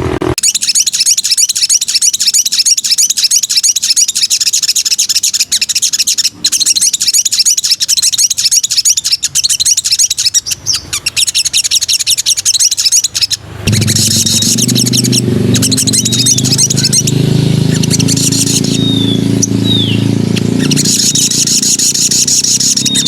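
Sogon (sogok ontong) songbird singing a fast, continuous high-pitched chattering song of rapidly repeated notes, with short falling whistled notes later on. About halfway through, a loud low steady hum starts up under the song.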